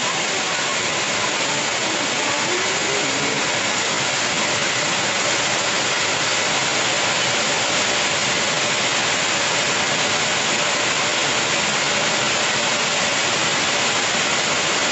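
Heavy rain falling steadily, a constant even rushing without breaks.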